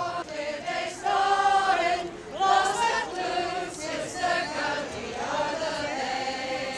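Several voices singing together, holding long notes in a slow tune.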